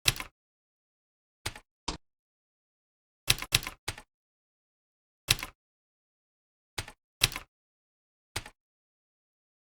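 Computer keyboard keys being typed sporadically: about ten separate keystrokes, some in quick pairs or triples, with pauses of a second or more between them.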